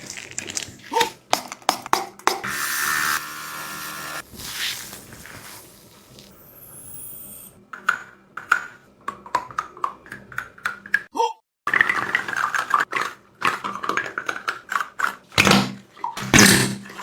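Many short taps, knocks and clicks of objects being handled, with a stretch of hiss about two to four seconds in.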